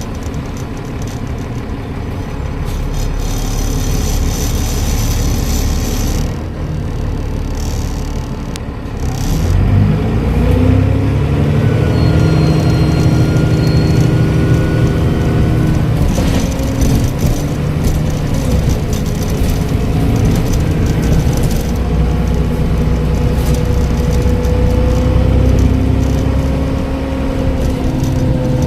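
Transbus Trident bus's diesel engine pulling away about ten seconds in, its pitch rising under acceleration through the Voith automatic gearbox, with a high turbocharger whistle over it and a gear change about sixteen seconds in.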